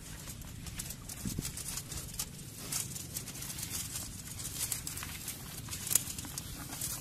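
Wire-mesh mouse trap with crabs inside clicking and rattling as it is handled and its door worked open, with irregular light metallic taps and one sharper click near the end.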